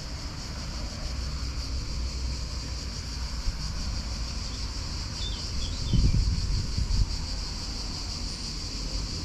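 Wind buffeting the microphone outdoors as a steady low rumble, over a constant high insect hiss, with a stronger low gust or bump about six seconds in.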